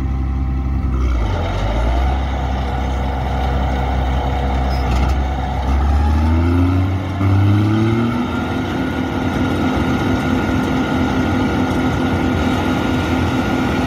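John Deere 9560 WTS combine harvester's diesel engine idling, then revving up about six seconds in with a puff of black smoke. It climbs to a steady run at high revs, with a high steady whine from the machine.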